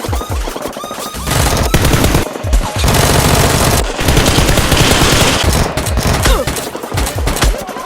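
Rapid automatic gunfire sound effects, dense strings of shots, over background music.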